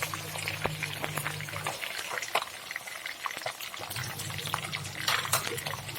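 Tilapia frying in hot oil in a pan: a steady sizzle full of small crackles and pops.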